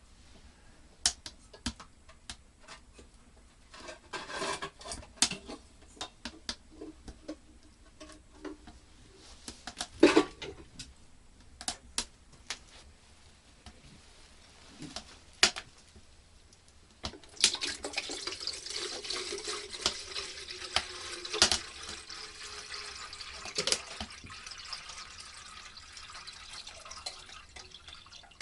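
Scattered clinks and knocks of dishes or pots being handled. About two thirds of the way in, water starts running or pouring steadily, with a few more knocks.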